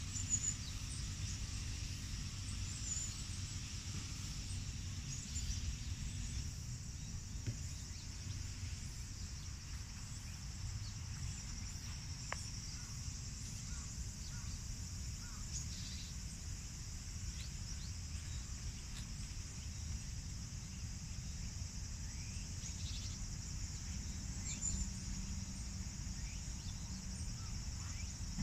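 Steady outdoor ambience: a continuous high insect drone over a low rumble, with a few faint chirps.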